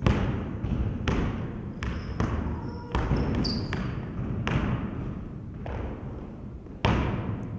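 Basketball bouncing on a hard gym floor as a player dribbles, one bounce every half second to second and a half, each echoing through the hall. A few short high squeaks come near the middle.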